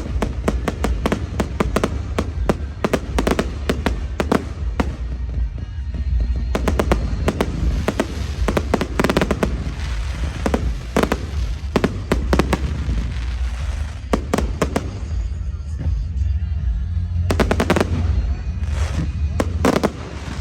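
Firework display: many rapid bangs and bursts one after another, densest in the first few seconds and again in the middle, easing briefly before more bursts near the end, with music playing under it.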